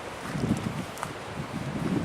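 Wind buffeting the microphone in uneven low gusts, with a few faint clicks.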